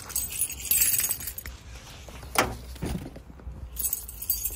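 Keys jangling in short bursts, with two soft thumps midway as a bag is set down on a car seat.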